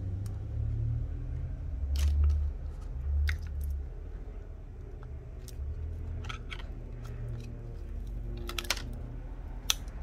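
A plastic pry tool working under a phone battery held down by strong adhesive, making scattered small sharp clicks and crackles at irregular moments over a low rumble.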